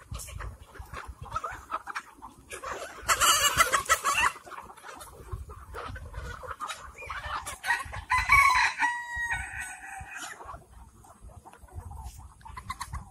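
Kadaknath chickens clucking, with a loud squawking burst about three seconds in. A rooster crows about seven seconds in, ending on a held note.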